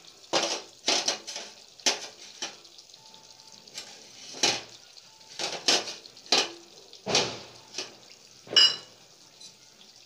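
Metal kitchen utensils and dishes clattering: about a dozen short clinks and scrapes at irregular intervals, with one louder, ringing clink late on.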